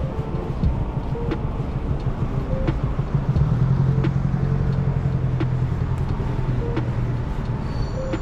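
Busy city street traffic, with a motor vehicle's engine rumbling close by for a few seconds in the middle.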